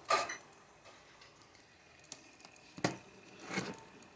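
A few light taps and clicks, spaced about a second apart, as a circuit board is handled.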